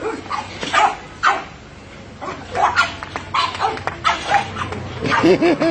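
Two French bulldogs barking in short, irregular bursts as they jump at a gate, about ten barks in all, with a higher, wavering whine-like cry near the end.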